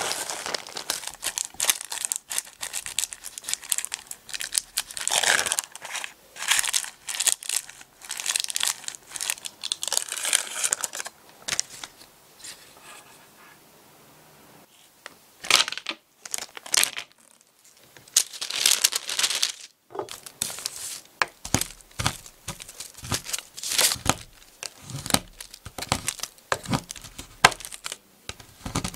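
Plastic zip bag crinkling as crushed Oreo crumbs are shaken out into a paper-lined cake pan and pressed down. Later, a knife chops a white chocolate bar on a wooden cutting board in a quick run of sharp cuts.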